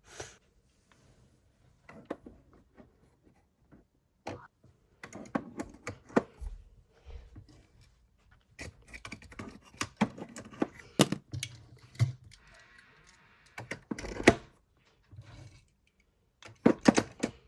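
Irregular clicks and light knocks of small die-cast toy cars being handled and set down on a toy garage, with a brief stretch of faint rolling hiss about two-thirds of the way through.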